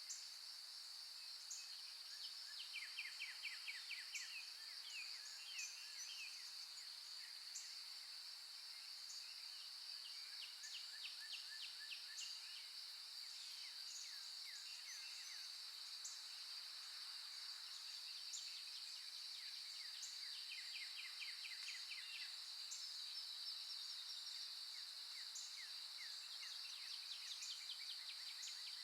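Nature ambience of birdsong: birds sing in quick trills that come and go, over a steady high insect drone like crickets.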